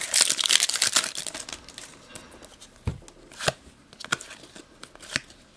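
A foil Panini Euro 2012 trading-card packet crinkling and tearing as it is ripped open by hand, then the cards inside rustling and clicking against each other as they are pulled out and fanned.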